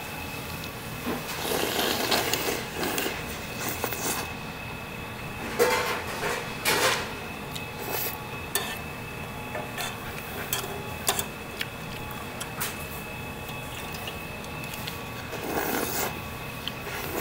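Eating sounds of a mukbang: tteokbokki being slurped and chewed in a few bursts, with sharp clicks of metal chopsticks and a plastic ladle against a metal pot. A faint steady high tone runs underneath.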